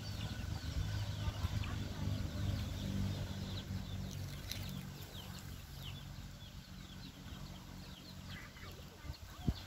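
Many short, quick bird calls scattered throughout, over a steady low hum; one sharp thump near the end.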